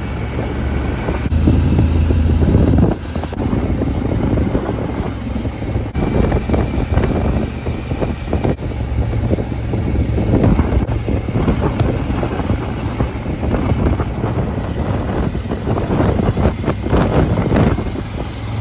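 Motorcycle on the move: a steady low engine drone under heavy wind buffeting on the microphone.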